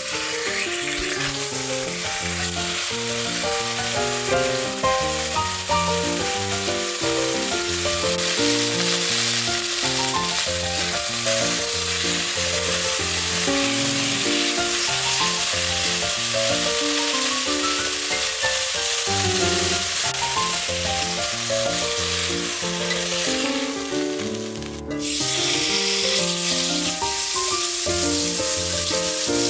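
Filet mignon steaks searing in oil in a heavy enamelled cast-iron pot: a steady sizzle. It breaks off briefly near the end, then bacon pieces frying in the same pot sizzle on, over background music.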